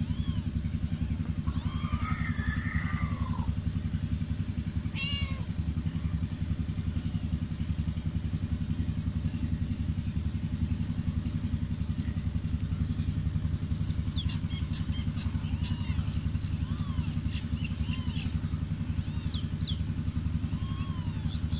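Newborn kittens mewing while nursing: a louder cry about two seconds in, another shortly after, then many thin, high squeaks bunched in the second half. Under them runs a steady low rumble.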